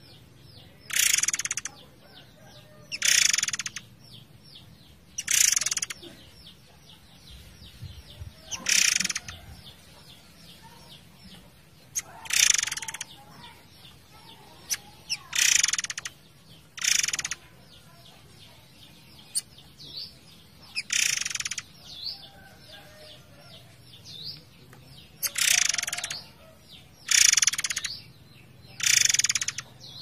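Murai air song: loud, harsh rasping bursts about half a second long, repeated roughly every two seconds. They lie over a steady faint run of small high chirps and a low background of running water.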